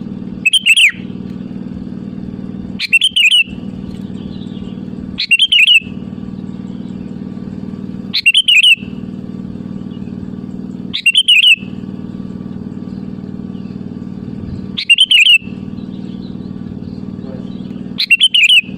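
Sooty-headed bulbul (kutilang) giving a short, loud, bubbly call phrase, repeated seven times every few seconds, over a steady low hum.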